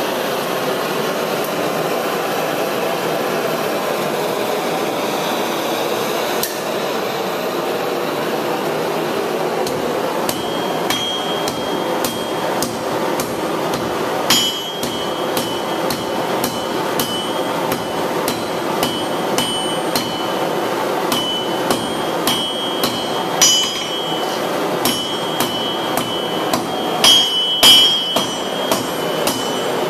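Hand hammer striking red-hot steel on an anvil: irregular blows, about one or two a second, each with a high ring, starting about a third of the way in, the hardest near the end. Under it runs the steady rushing noise of a blower-fed forge.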